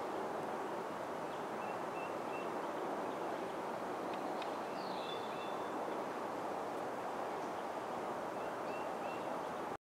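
Steady outdoor background noise with a few faint, short bird chirps, one a quick falling note about five seconds in. The sound cuts off abruptly just before the end.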